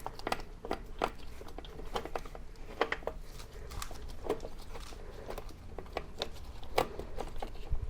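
Motorcycle drive chain clinking in irregular light clicks and small metallic knocks as it is handled onto the rear wheel sprocket, with one sharper knock near the end.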